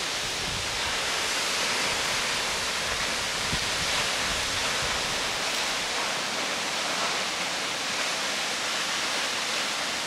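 Steady rushing hiss of a tall waterfall plunging down a cliff face, even and unbroken.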